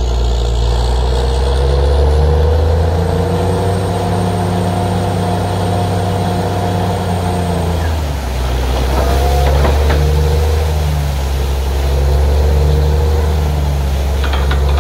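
Borewell drilling rig's engine and compressor running hard. About eight seconds in the note dips, then settles into a slow regular pulsing. From there, compressed air blows water and slurry out of the bore, a hissing gush over the engine.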